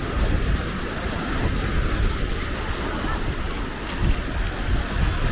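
Wind buffeting the microphone in a low rumble over small waves breaking and washing up the shore.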